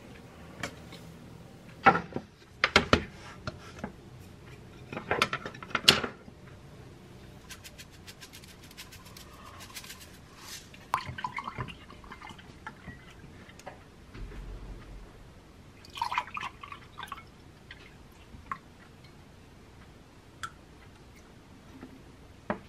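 A few sharp knocks and clatter on a kitchen counter, then a drink poured from a glass bottle into a glass mug, trickling and glugging for a second or two, followed by light clinks of glass and dishes.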